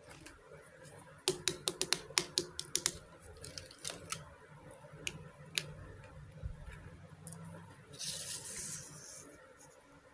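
Small miniature kitchen toy pieces clicking and tapping as they are handled. A quick run of about a dozen light clicks comes a little over a second in, a few scattered clicks follow, and there is a brief rustle about eight seconds in.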